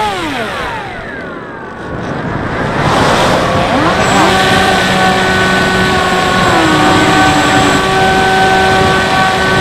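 Bixler 3 RC plane's electric motor and propeller, heard from a camera on the plane. The whine falls away as the throttle is cut, leaving a rush of air for a couple of seconds. About three to four seconds in the motor spools back up and holds a steady whine.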